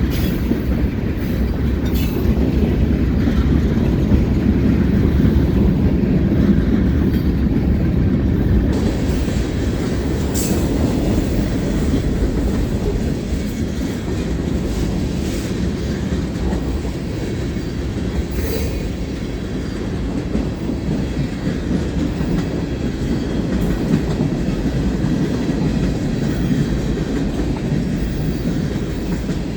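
Cars of a long mixed freight train rolling past: a steady low rumble of steel wheels on the rails, with occasional sharp clicks.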